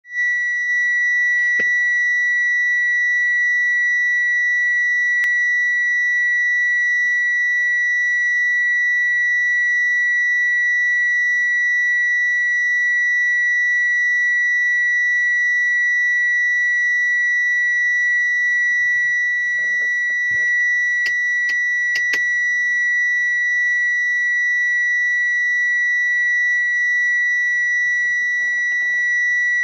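Car parking sensor giving one continuous, unbroken high-pitched beep tone, the solid tone such systems sound when an obstacle is at the closest range.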